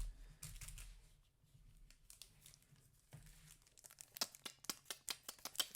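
Foil trading-card booster pack wrapper being handled and torn open, crinkling faintly, with a knock at the start and a quick run of sharp crackles from about four seconds in.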